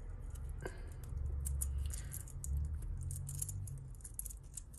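Small clicks and clinks of costume jewellery being handled, a metal chain and glass pieces rattling as a pendant is worked off a necklace.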